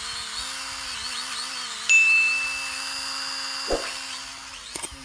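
Small folding quadcopter's motors whining steadily with a slight waver. About two seconds in, a loud steady high electronic ding-like tone starts suddenly and holds for nearly two seconds. A thump follows just before four seconds.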